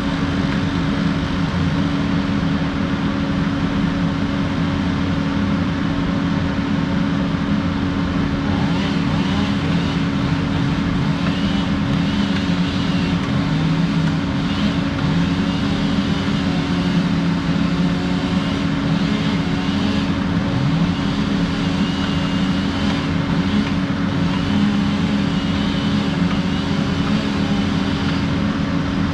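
Engine running at a steady speed, with fainter pitches wavering up and down over it.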